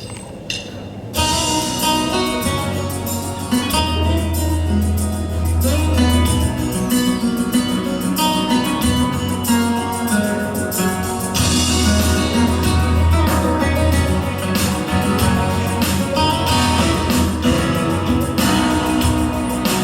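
Devotional prayer song with guitar and singing, starting about a second in after a brief pause.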